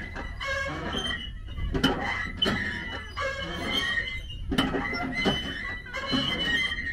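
Rope suspension bridge with wooden planks creaking and squealing as people walk across it, with irregular knocks of footsteps on the planks over a low steady rumble.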